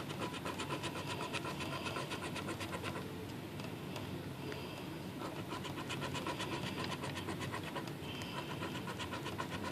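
A coin scraping the latex coating off a scratch-off lottery ticket in rapid back-and-forth strokes, several a second.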